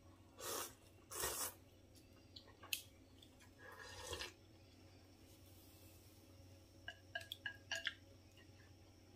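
A person slurping noodle soup: two short slurps of noodles, then a longer sip of broth from the bowl about four seconds in. Near the end comes a quick run of light clicks of chopsticks against the bowl.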